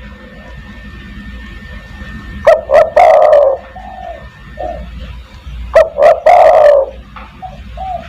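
Spotted dove (tekukur) cooing: two loud calls about three seconds apart, each a couple of short notes running into a longer burry coo, with softer coos in between.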